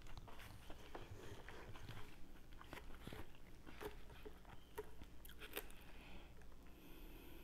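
Irregular soft clicks and crunches of a wooden fork tossing lettuce and dressing in a clear plastic salad bowl, with close chewing sounds.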